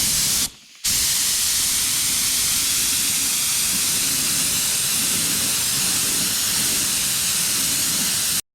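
Spray paint hissing from the nozzle as the fuel cap is painted: one short spray, a brief pause about half a second in, then one long steady spray that cuts off sharply near the end.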